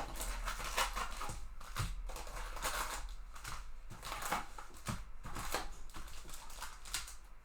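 Crinkling and rustling of foil-wrapped trading card packs and their cardboard box being handled as the packs are taken out, in short irregular scrapes and crackles.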